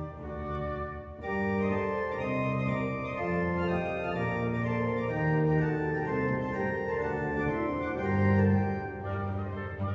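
Background music of slow, held keyboard chords, thin at first and fuller from about a second in.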